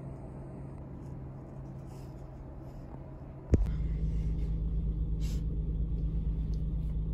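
Low, steady rumble of a vehicle heard from inside its cabin. About halfway through, a sharp click is followed by an abrupt jump to a louder, deeper rumble.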